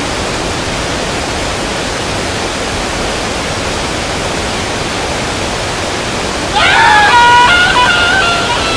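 Steady, loud hiss of static-like noise that cuts in abruptly. About six and a half seconds in, a high-pitched sound with several flat steps in pitch rises over it for about two seconds.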